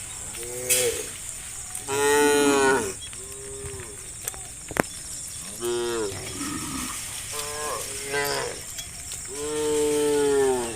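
Cows in a herd mooing again and again, about six calls of differing pitch and length; the longest and loudest moos come about two seconds in and near the end.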